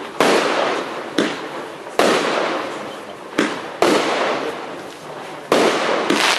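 TXB673 Triplex consumer firework firing a string of aerial shots, about seven sharp bangs at uneven intervals, each trailing off over about a second.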